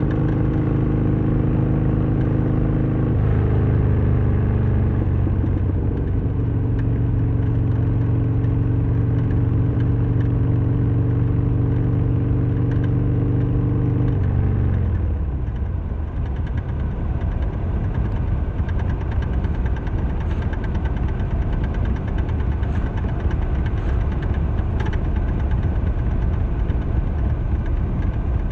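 Harley-Davidson Sportster XL1200R's air-cooled V-twin engine running on the move, holding a steady note with a change in revs about three seconds in. About fourteen seconds in the revs fall away, and it runs on low with a rougher, noisier sound.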